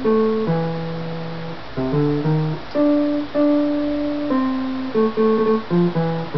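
Lowrey GX-2 electronic organ playing a single-note melody on its jazz guitar voice, a plucked-guitar-like tone. About fourteen notes, with quick runs of short notes about two seconds in and again near the end.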